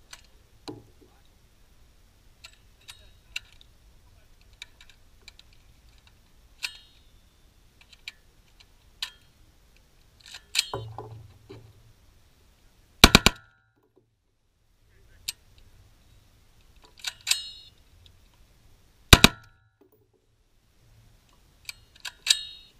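M16-style rifle firing single shots and quick strings several seconds apart, the loudest being rapid clusters of two or three shots about halfway through and again some six seconds later. Some shots carry a short metallic ring after the crack.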